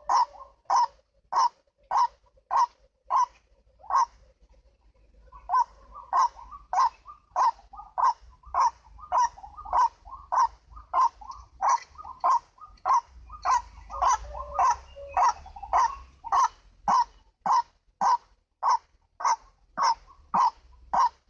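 White-breasted waterhen calling, a monotonous 'kru-ak' repeated about twice a second, with a break of about a second and a half about four seconds in.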